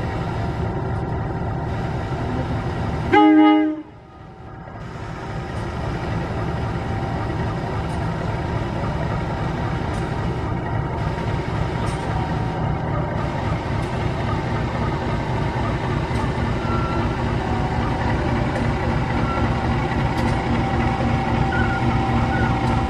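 CC 201 diesel-electric locomotive running steadily, with one short, loud horn blast about three seconds in.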